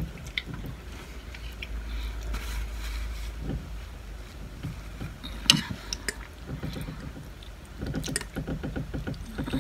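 Eating noises: a tissue rustling against the nose a couple of seconds in, as spicy noodles make the nose run. Then sharp clicks of a fork on a plate and quick chewing and slurping of noodles near the end, over a steady low hum.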